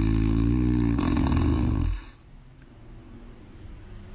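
A low, drawn-out growling sound at a steady pitch that stops about two seconds in.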